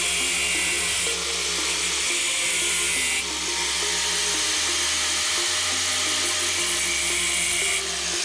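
Angle grinder cutting through the tack welds on a steel alternator mounting bracket, a steady high-pitched grinding that is strongest from about one to three seconds in and stops shortly before the end. Background music plays under it.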